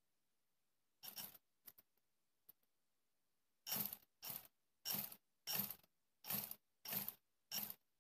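Steel scissors snipping through thick trouser fabric: seven even cuts about two-thirds of a second apart. A short clatter and two light clicks come before the cutting starts.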